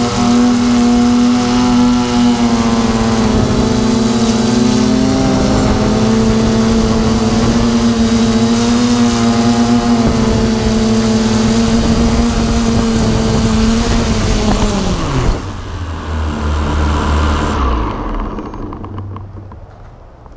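Drone's electric motors and propellers humming steadily, heard from the drone's own camera. About fifteen seconds in, after it has come down on the grass, the motors spin down with a falling pitch and stop.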